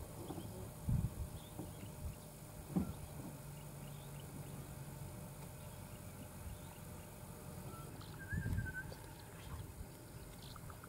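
Quiet outdoor ambience with a low rumble and a few dull thumps. A short warbling bird call comes about eight seconds in.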